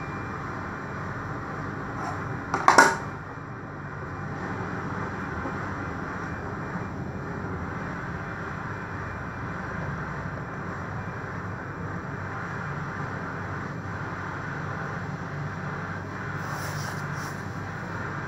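A sharp double knock about three seconds in, a hand tool striking a metal switch box, over a steady background hum.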